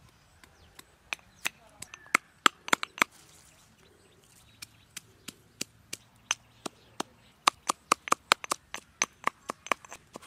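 Sharp knocks in quick, irregular runs: a cluster from about one to three seconds in, then a longer, faster run from about five seconds on, up to three or four strikes a second.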